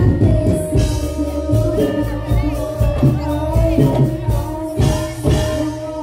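Javanese gamelan-style barongan dance music played loud, with heavy drums, held metallic tones and a singer. The low drumming drops out just before the end.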